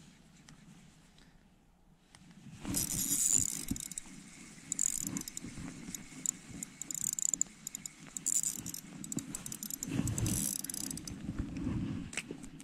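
Rattling, jangling handling noise in five or six bursts, starting about two and a half seconds in, with low knocks mixed in.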